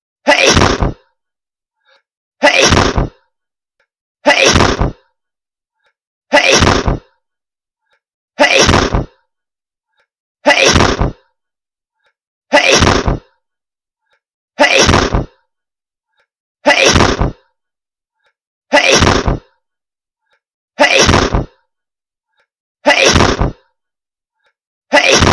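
A hedgehog's short sneeze, the same sneeze repeated as a loop about every two seconds, twelve times over.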